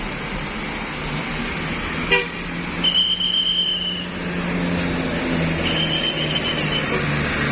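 A bus horn gives two long, high toots, each about a second, over a bus engine running steadily. A sharp click comes a couple of seconds in.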